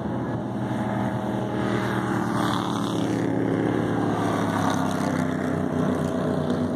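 Bandolero race car engines running at speed as the cars lap the track: a steady drone of engine notes that grows a little louder in the first two seconds as a car comes past close by.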